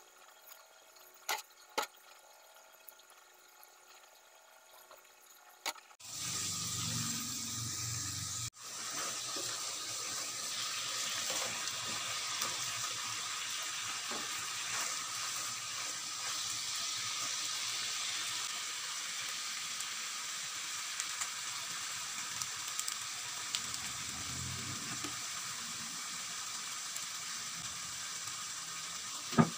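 A knife clicks a couple of times on a wooden chopping board as chicken liver and gizzard are cut. From about six seconds in, chicken liver, gizzard and fried tofu sizzle steadily in a pan, with a sharp knock near the end.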